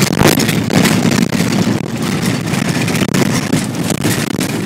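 A Jeep being driven: the engine runs steadily under a thick noise of the moving vehicle, with frequent short rattles and knocks.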